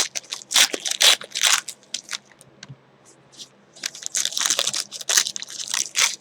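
Crinkling, rustling and tearing of baseball card pack wrappers and cards being handled as packs are opened, in irregular bursts with a short pause about halfway through.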